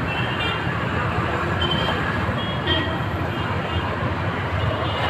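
Steady traffic noise from a busy city road, with a few brief high beeps of vehicle horns.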